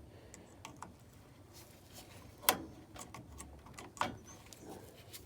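A few light, sharp taps and clicks, the loudest about two and a half seconds in and another about four seconds in: handling noise from meter probes being moved on a dryer's control board.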